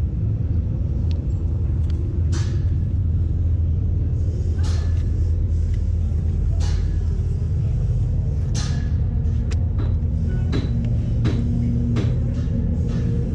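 A steady low vehicle rumble, with about eight short, sharp clicks and taps scattered through it.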